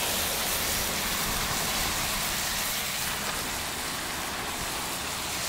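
Ground beef patties frying on a hot, oiled Ballistic Griddle, giving a steady sizzle.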